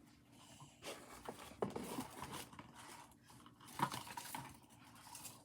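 Light clicks and rustles of small objects and paper being handled on a table, with a sharper click about a second and a half in and another near four seconds in.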